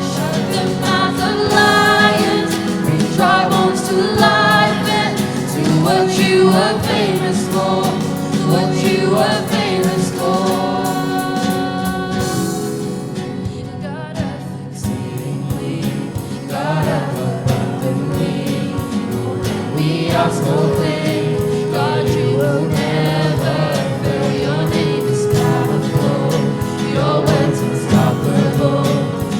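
Live gospel worship music: several voices singing together over sustained instrumental accompaniment, dipping a little in level about halfway through.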